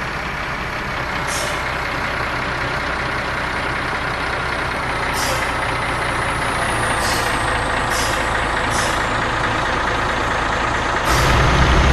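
Bus engine running with a deep growl that builds slowly, with several short high hisses along the way. About eleven seconds in it turns suddenly louder and deeper.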